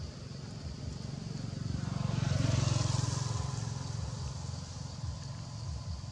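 A motor vehicle passing by, growing louder to a peak about two and a half seconds in and then fading away.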